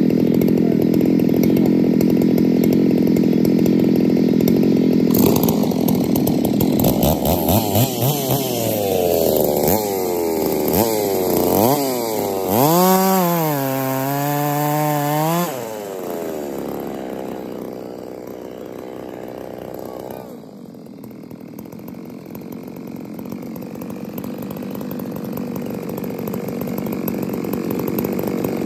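Ported Stihl 660 chainsaw running off the wood: it runs steadily, then from about five seconds in is blipped up and down several times and held at high revs for about three seconds. It then falls back to idle and cuts out about twenty seconds in.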